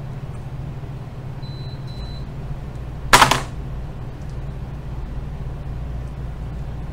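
Steady low hum with one sharp, loud clack about three seconds in.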